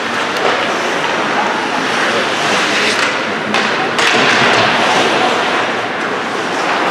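Ice hockey game sound in a rink: a steady wash of noise with indistinct voices, broken by two sharp knocks about three and a half and four seconds in.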